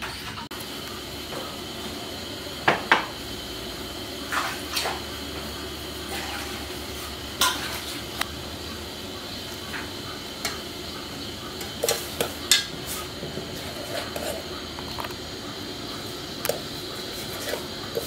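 Metal ladle clinking and scraping against a steel cooking pot of boiling water, in irregular sharp knocks over a steady background hiss.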